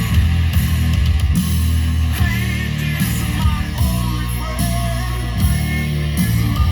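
Heavy rock music with electric guitar and a strong, sustained bass line, played through an early-1990s Harman Kardon speaker system with its bass turned up.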